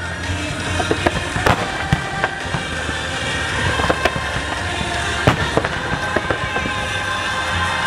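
Aerial fireworks going off in irregular sharp bangs, the loudest about a second and a half in and again past five seconds, over the show's music.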